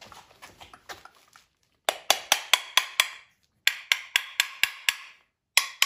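A hammer tapping rapidly on the metal housing of an automotive air-conditioning compressor to knock a stuck section apart: runs of about seven quick, ringing taps at about five a second, starting about two seconds in and again near four seconds, with a third run beginning at the end. Faint handling clicks come before the first run.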